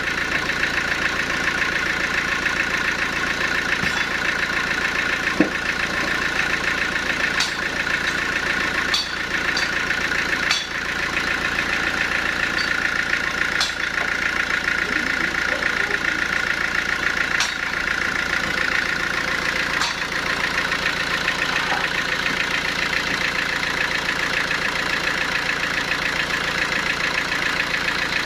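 Sawmill machinery running steadily, a continuous mechanical drone with a fine rapid pulse, with a few faint clicks or knocks scattered through it.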